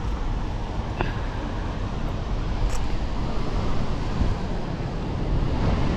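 Wind buffeting the microphone as a steady low rumble and rush, with two faint clicks about one and three seconds in.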